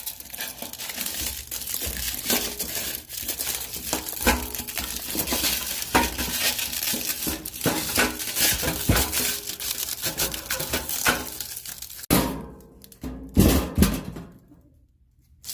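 Plastic protective film being peeled and crumpled off a stainless steel toolbox: continuous crinkling and tearing with many small clicks, and a few louder knocks on the sheet-metal box about twelve to fourteen seconds in.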